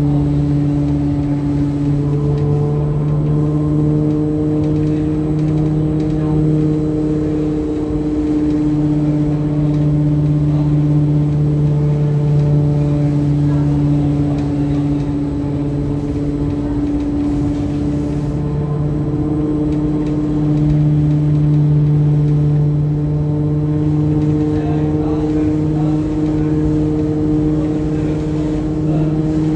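Danhai light-rail tram's steady electric hum: a low tone with several overtones that shifts slightly in pitch a few times.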